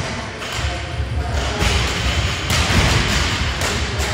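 Thuds of two athletes' feet and bodies landing on a rubber gym floor and a wooden plyo box during burpee box jump-overs, over loud background music with a low beat.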